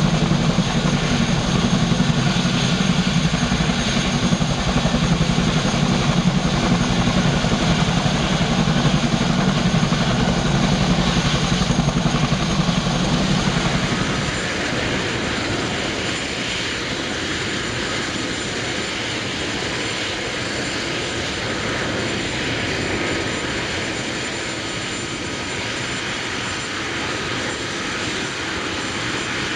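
Boeing Chinook HC4 twin-rotor helicopter running on the ground. A loud, deep drone up close gives way about halfway through to a quieter, steadier, hissier running sound heard from farther off.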